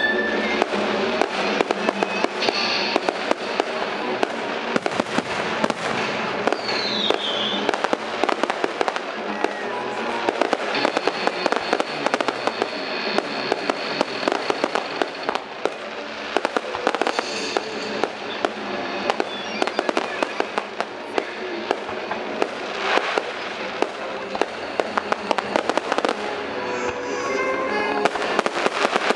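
Fireworks display going off without pause: a dense stream of bangs and crackling bursts, with show music playing over it.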